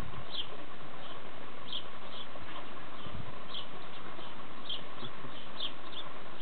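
Small birds chirping in the background, short high chirps repeating every half second to a second over a steady hiss, with a soft low thump or two.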